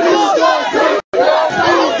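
A large crowd shouting all at once at close range, many voices overlapping. The sound cuts out completely for a split second about halfway through.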